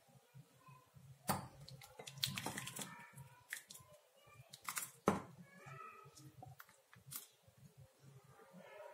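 Slotted spatula scraping and knocking against a stainless steel pot as thick milky custard vermicelli is poured out into a glass bowl, with a few sharp scrapes and clicks between quieter stretches.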